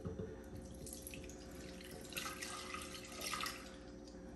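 Milk poured from a mug into a plastic blender jar: a faint splashing trickle, heaviest a little past the middle.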